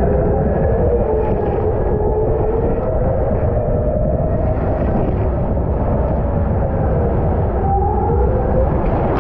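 Steady rushing rumble of a rider sliding down an enclosed water-slide tube, overlaid with a Formula 1 racing-car engine sound effect from the slide's speakers, its whine rising and falling in pitch.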